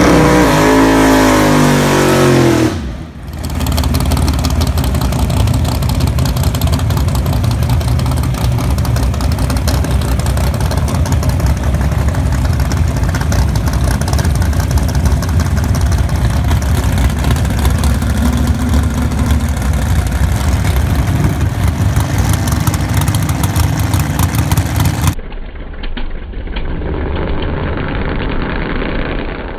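1968 Plymouth Barracuda drag car's engine revving through a burnout, its pitch climbing and falling over the first few seconds. After a cut come loud, steady drag-racing engine noise from passes down the strip, which turns duller for the last few seconds.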